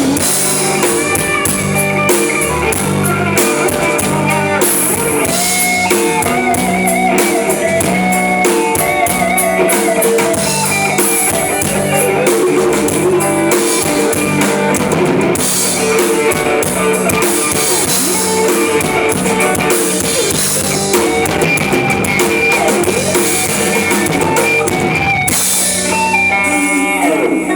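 Live rock band playing an instrumental passage: drum kit keeping a steady beat with cymbals, a guitar playing a bending melodic line, and bass underneath.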